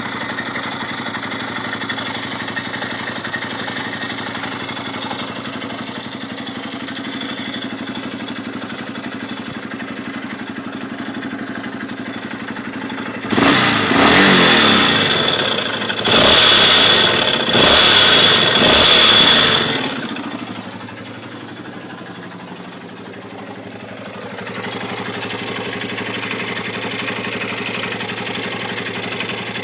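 Yamaha Raptor 350 quad's single-cylinder four-stroke engine idling, then revved in four quick blips about halfway through before dropping back to idle. The owner finds a strange noise in it.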